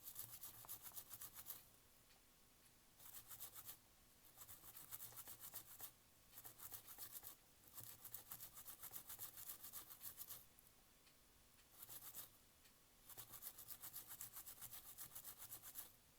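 Faint, fast, fine scrubbing in repeated short bursts with brief pauses between, from cleaning the cassette player's tape mechanism.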